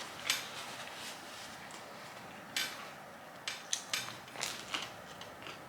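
Eating and food-handling sounds at a table: scattered short, sharp clicks and crackles, busiest about halfway through.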